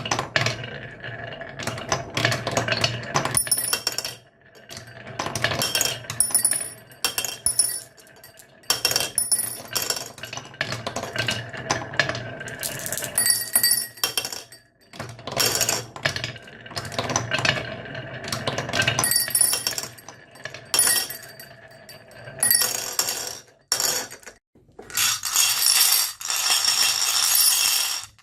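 Marbles rolling and clattering down a marble run track in several runs a few seconds long, separated by short pauses. There is a low rolling rumble with dense clicks, and ringing clinks where marbles strike the track and each other.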